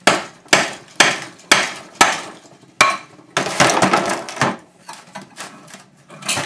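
Hammer blows on a cement mixer's electric motor housing to break it open: six sharp strikes about two a second, then a rattling, scraping stretch and a few lighter knocks near the end.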